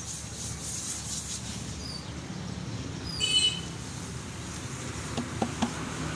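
Steady background hum of street traffic. A little past three seconds in comes a brief, loud, high chirp with falling pitch, and near the end there are a few light knocks.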